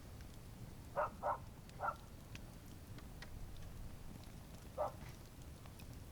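Campfire burning with a low steady rumble and scattered faint, sharp crackles of burning wood. Four short, louder sounds stand out: three in quick succession about a second in, and one more near five seconds.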